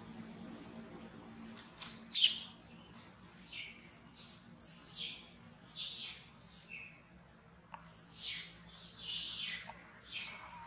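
A rapid series of short, shrill animal calls starting about two seconds in, each sliding down in pitch, the loudest near the start.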